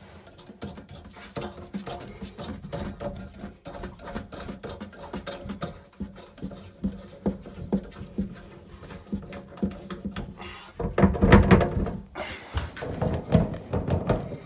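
Handling noise under a kitchen sink: a run of small clicks and metallic taps as a hand works the nut on the tap's threaded fixing stud, then louder knocks and rustles near the end.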